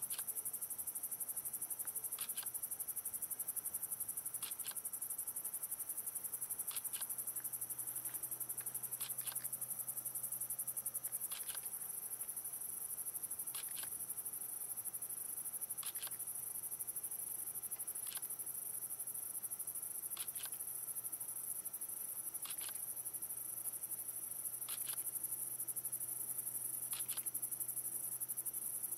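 Night chorus of crickets: a steady, high-pitched pulsing trill, with a short double chirp repeating about every two seconds.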